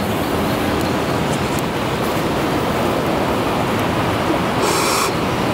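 Steady rushing outdoor background noise, with a short breathy hiss near the end.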